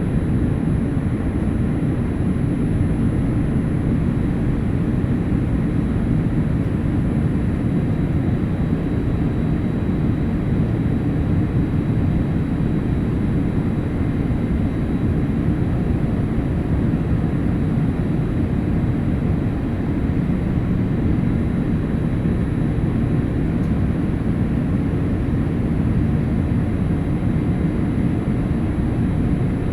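Steady low cabin rumble inside a Boeing 787-8 Dreamliner in flight: airflow and GEnx-1B engine noise, with a faint thin high whine.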